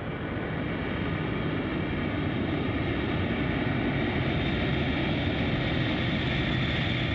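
A vehicle engine running with a steady drone, swelling up over the first second and then holding level.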